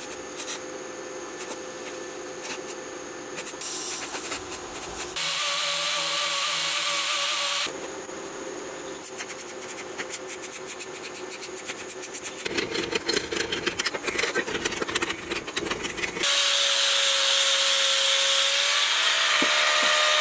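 Stick (arc) welding crackling and sputtering on a steel part, broken by a couple of seconds of a power tool's steady whine about a quarter of the way in. About four-fifths of the way through, an angle grinder starts running steadily, its pitch lifting slightly and then starting to drop at the very end.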